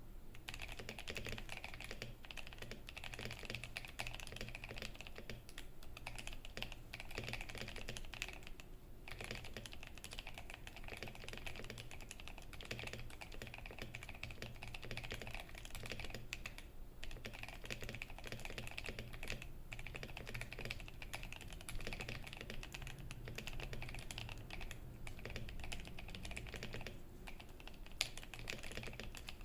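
Typing on a KBD67 Lite R3 mechanical keyboard with lubed Boba U4T tactile switches, a silicone-dampened case and Cherry Stone keycaps: a dense, steady stream of keystrokes with a few brief pauses and one louder stroke near the end. The spacebar gives a deep thock.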